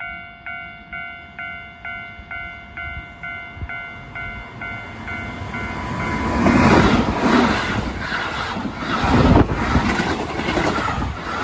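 Japanese level-crossing warning bell ringing about twice a second, then a Keihan electric train passing over the crossing from about six seconds in, its wheels clacking over the rail joints and drowning out the bell.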